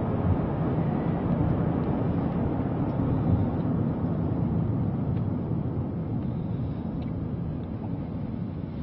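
Steady road and engine noise of a moving car heard from inside the cabin, a low rumble that eases off a little near the end.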